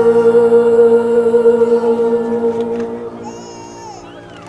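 A singer holds a long final note over the stage show's backing music, and the sound fades out about three seconds in. As it dies away, a few brief, wavering high-pitched calls come from the audience.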